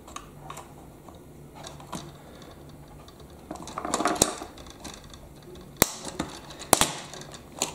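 A small metal chisel prying and scraping at plastic snap-fit tabs inside a Bruder toy telehandler's hollow plastic body as the last tab is worked free. Scattered small plastic clicks, a longer scraping spell about halfway through, and two sharp clicks near the end.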